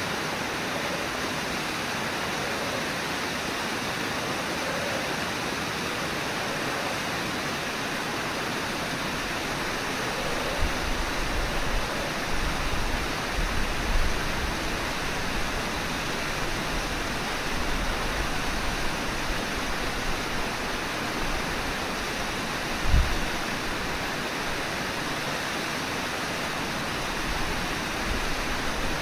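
Steady rush of the Brooks River flowing over its falls and riffles. From about ten seconds in, irregular low rumbles come and go, with one sharp low thump about two-thirds of the way through.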